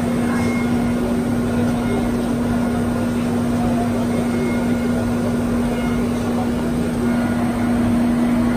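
5-axis CNC milling machine cutting a metal part under flood coolant: a steady, even tone from the spinning cutter over a constant noisy wash of coolant spray.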